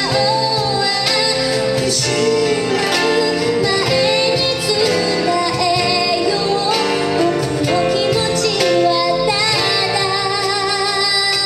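A woman singing a slow ballad live, held notes with vibrato, over a band of keyboard, acoustic guitar, bass and percussion.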